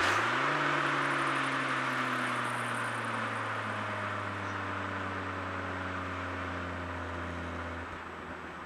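Ford Focus ST's turbocharged five-cylinder engine through a Milltek resonated exhaust. Its note climbs sharply in the first half second, then sinks slowly and grows quieter as the revs fall off-throttle, and drops a step lower near the end.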